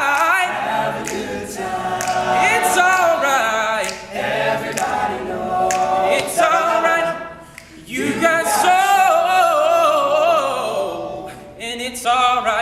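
All-male a cappella group singing in close harmony with no instruments, on sustained vibrato chords. About seven and a half seconds in the voices break off briefly, then come back on a long held chord.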